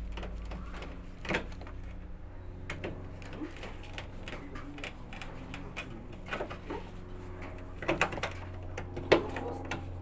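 Screwdriver tip scraping and clicking against the plastic drain pump filter cap and housing of a Samsung front-loading washing machine, with scattered sharp clicks and a louder knock about nine seconds in, over a steady low hum.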